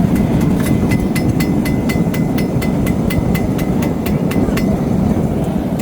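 Rapid hammer blows on an anvil, about four to five a second with a ringing tone, stopping near the end, over the steady roar of a gas forge's burner.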